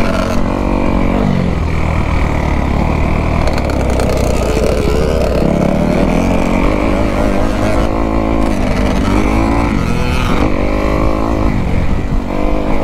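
Dirt bike engine being ridden hard around a motocross track, its pitch climbing and dropping again and again as the rider opens and closes the throttle, over a steady low rumble.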